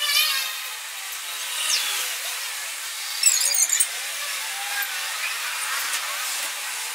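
Metal hand tools clinking in a short cluster of sharp clicks about halfway through, over steady background hiss.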